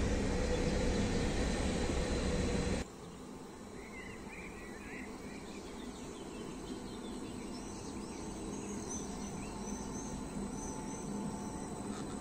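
A steady rushing noise that cuts off sharply about three seconds in, then a quieter scene with small birds chirping over a faint low hum that slowly grows as an ODEG Stadler KISS double-deck electric multiple unit rolls towards the platform.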